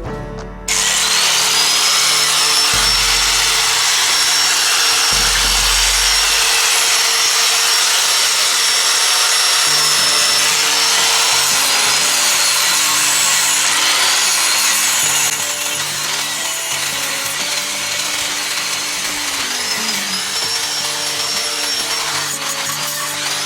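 A handheld power tool starts suddenly about a second in with a high whine and runs steadily, with a harsh scraping noise as it works against a surface. It gets quieter about two-thirds of the way through and winds down near the end. Background music plays underneath.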